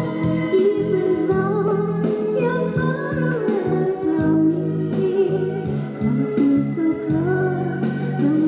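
A song with a singing voice over steady accompaniment, played back from a cassette tape on a portable PYE stereo cassette player.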